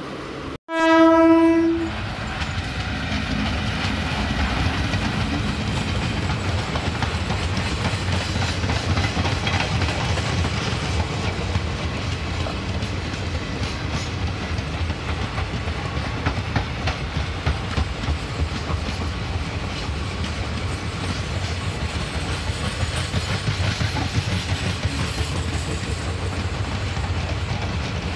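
A train horn sounds once for about a second, then the blue passenger coaches of an Indian Railways express roll past, with a steady rumble and wheels clicking over the rail joints.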